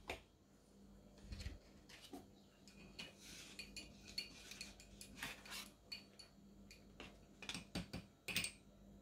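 Faint clinks and taps of a paintbrush being rinsed in a glass water jar: scattered small knocks, the loudest a few close together near the end.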